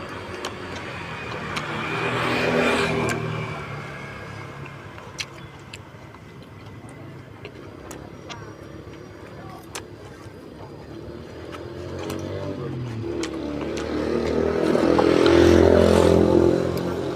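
Road vehicles passing by twice: one swells up and fades a couple of seconds in, and a louder one swells up and fades near the end. Small sharp ticks are scattered between them.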